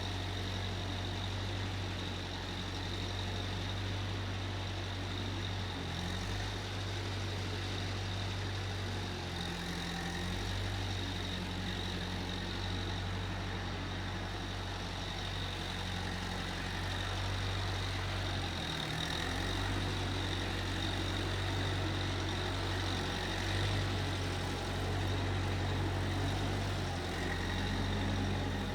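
Case 1530 Uni-Loader skid steer engine running steadily, its low hum dipping briefly in pitch a few times.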